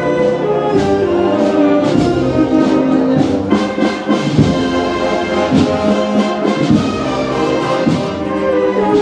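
Brass-led wind band (banda de música) playing slow processional music: sustained brass chords over occasional drum beats.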